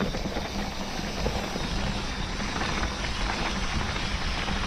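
A mountain bike rolling fast along a dirt trail, with a steady low wind rumble on the microphone.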